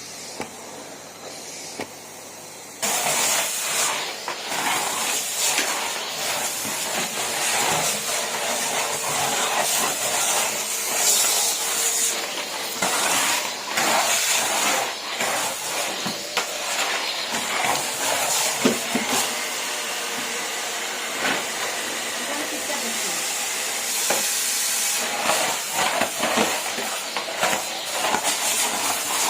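Numatic Henry cylinder vacuum cleaner switched on about three seconds in and running, a rush of air over a steady hum, the suction noise rising and falling slightly.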